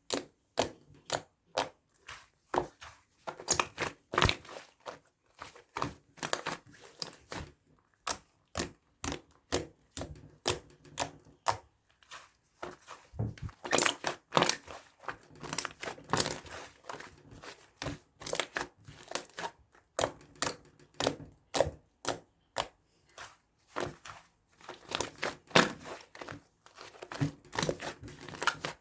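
A close string of sharp clicks and short crinkly crunches, one to three a second, with a few louder, longer crunches among them.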